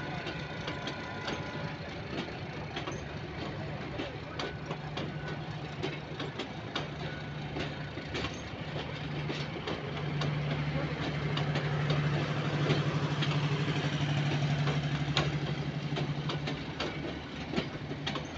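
Metre-gauge passenger coaches rolling slowly past at close range, wheels clicking and knocking irregularly over the rail joints. A steady low hum runs under them and grows louder in the middle part.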